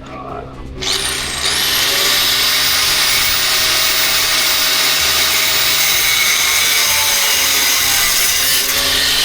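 A power tool starts about a second in, winding up, then runs steadily with a loud hiss while working on a rusted, seized lower control arm bolt. It begins to wind down near the end.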